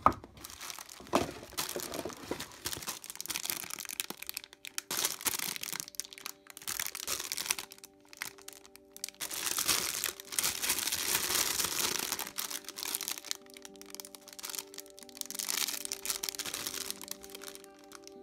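Clear plastic bags crinkling and rustling in irregular bursts as bagged plastic model-kit sprues are lifted and handled, with a sharp crackle at the start and another about a second in.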